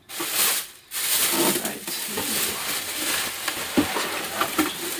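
Plastic bag and cardboard packaging rustling and crinkling as a sonar shuttle is pulled from its box: a continuous crackly rustle with a brief pause just before a second in.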